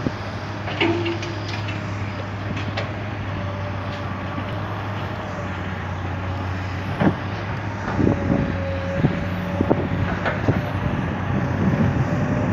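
Diesel engines of a Komatsu excavator and a Ford L9000 dump truck running steadily. From about seven seconds in, sharp clanks and thuds break in every second or so as the excavator loads the truck.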